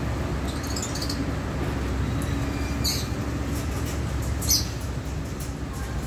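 Alexandrine parakeets giving a few short, high chirps, the loudest about four and a half seconds in, over a steady low rumble.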